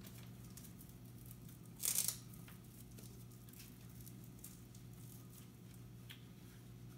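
A hook-and-loop (Velcro) strap on a small dog's snow bootie ripped open once, a short tearing sound about two seconds in, amid faint fabric rustling as the bootie is fitted to the paw.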